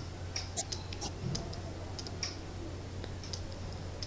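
Faint, irregular small clicks, several a second, over a steady low electrical hum, like computer mouse or keyboard clicks.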